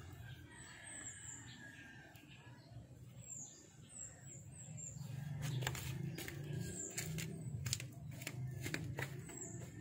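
Small birds chirping in short, high, falling notes, a quick run of them about three to four seconds in and another near the end. From about halfway on, a string of sharp, irregular clicks and knocks over a low steady hum.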